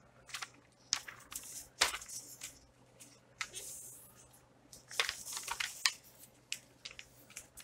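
Sheets of paper being moved and shuffled by hand, rustling and crinkling in irregular short bouts, with a sharper crackle near the two-second mark and a longer rustle about five seconds in.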